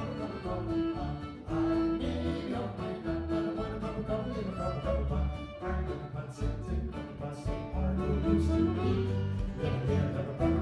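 Live acoustic folk music, instrumental: a fiddle playing long held notes over strummed guitars.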